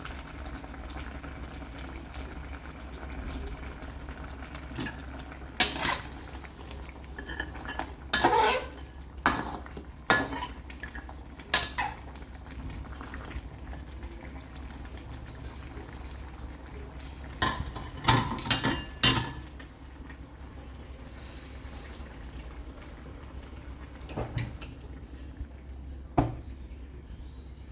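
Metal cookware and utensils clattering against a pot in several short bursts, over a steady low hum.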